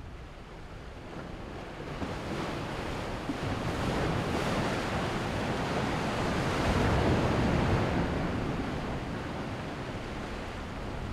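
Ocean waves washing: a rushing surf noise that builds to a peak about seven seconds in, then eases off.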